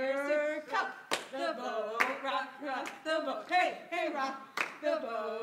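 Two girls singing a hand-clapping chant, a held note followed by quick sung lines, with sharp hand claps falling between the words.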